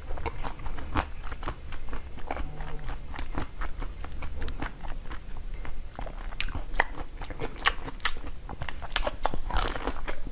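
Biting into and chewing a frozen ice cream bar with a blue coating: a run of crisp crackling crunches, coming thicker and louder in the last few seconds.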